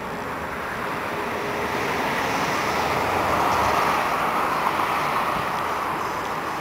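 Street traffic noise: a vehicle passes on the road, its noise swelling to a peak about three and a half seconds in and then fading.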